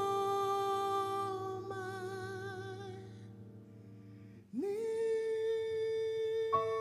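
A male singer's voice holds a long note that wavers into vibrato and fades away. After a brief hush he hums a note that slides up and holds steady, and piano notes come in near the end.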